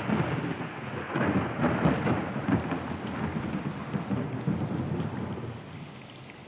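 Thunderclap sound effect rolling over heavy rain, starting suddenly; the rumble eases after about five seconds, leaving steady rain.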